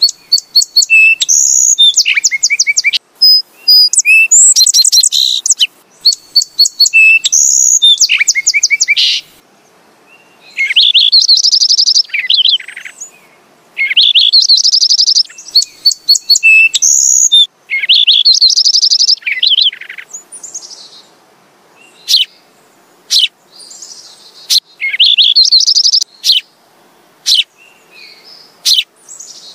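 House sparrows chirping: bursts of rapid, high chirps a second or two long with short gaps between them, giving way to scattered single sharp chirps in the last third.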